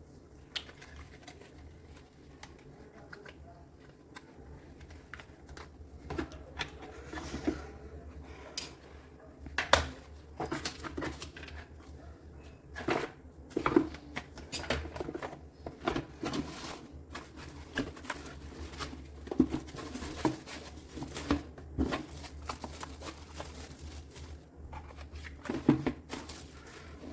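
Typing on a Redragon K596 Vishnu mechanical keyboard with linear red switches: quick, irregular key clacks, with a few louder strokes spread through.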